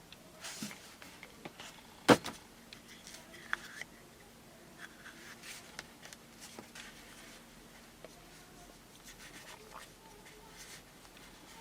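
Hands handling a Kinder Surprise egg and its parts: light rustles, scrapes and small clicks, with one sharp click about two seconds in.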